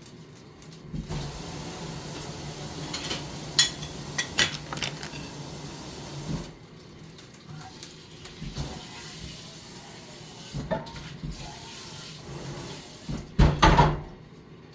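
Kitchen sounds: water running for about five seconds with several sharp clinks of dishes, then a louder clatter near the end.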